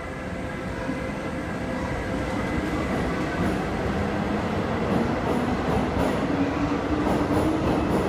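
Paris Métro MF67 train pulling out of the station and picking up speed, wheels rumbling on the rails under a slowly rising motor whine that grows louder as it accelerates.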